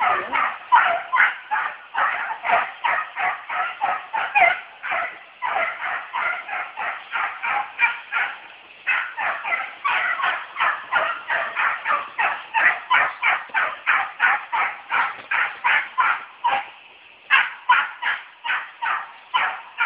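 American beagle giving its chase cry while trailing a wild boar: rapid, high yelping barks at about four a second, kept up with only a couple of brief pauses.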